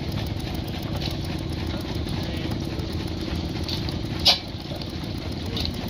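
Vintage horizontal single-cylinder stationary engine running steadily with a low rhythmic chug, with a sharp click about four seconds in.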